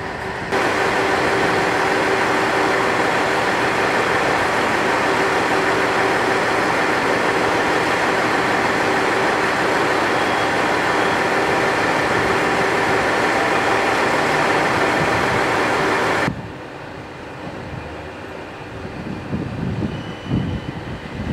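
Aizu Railway diesel railcar standing at idle close by: a loud, steady engine and machinery hum with fixed tones. About three-quarters of the way through it cuts off abruptly to a quieter, more distant hum.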